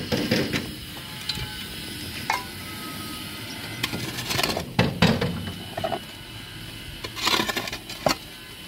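A short-handled metal hoe striking and scraping packed soil and broken brick, with chinking of loose rubble. The strikes come at irregular intervals; the loudest fall about four and five seconds in and again about seven seconds in.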